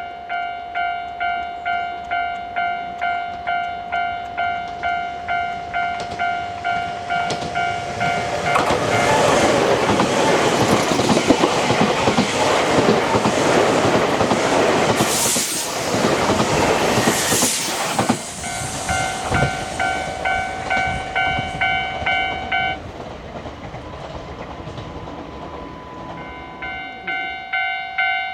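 Japanese level-crossing warning bell ringing at about two strokes a second, then a Nankai Koya Line train passing over the crossing with loud rail noise and two brief loud bursts near the middle. The bell rings on after the train, stops, and starts again near the end.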